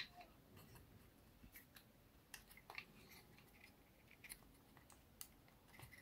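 Near silence broken by faint, scattered clicks and light taps as fingers handle a small laser-cut wooden model, its thin plywood parts knocking together. There are about half a dozen clicks, spaced irregularly.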